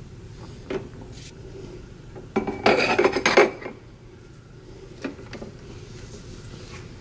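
Ceramic mug set down and shifted on a Nespresso coffee machine's drip tray, clattering for about a second near the middle. Single light clicks come before and after it as the machine is handled.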